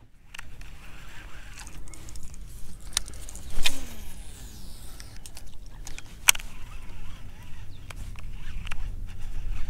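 Fishing tackle being cast and worked: a few sharp clicks and knocks, the loudest about three and a half seconds in, over a faint mechanical whirr such as a reel being wound.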